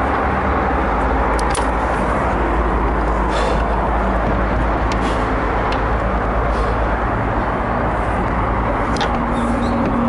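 Steady rushing background noise, with scattered light clicks and scrapes from a climber's hands and gear moving on an artificial climbing wall.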